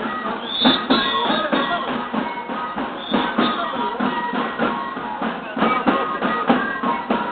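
Live band music: wind instruments play a melody over a steady drum beat.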